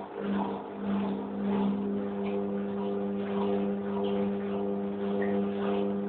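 Hoover Electra 1100F washing machine tumbling its drum in a rinse: the drum motor gives a steady hum while water sloshes and splashes in the drum.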